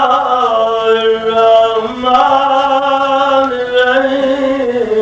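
A man chanting solo in long, held notes that step up and down in pitch.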